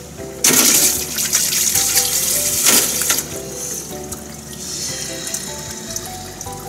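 Water running from a kitchen tap into the sink, starting suddenly about half a second in at full flow, then running more softly after about three seconds. Background music plays underneath.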